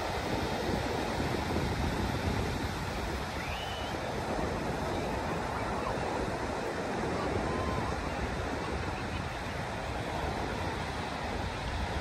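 Ocean surf breaking and washing over a shallow sandy beach: a steady rush, with wind rumbling on the microphone. A faint short gull call or two sounds about three and a half seconds in.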